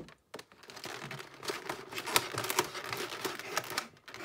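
Stiff clear plastic clamshell packaging crackling and snapping as it is pulled and pried open by hand. A quick run of sharp clicks gets denser after the first second or so.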